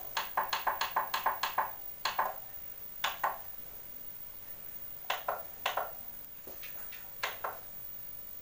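Push buttons on a Sharp CRT television's front panel clicking as they are pressed to scroll through the menu. A quick run of about six clicks comes first, then single clicks and close pairs of clicks.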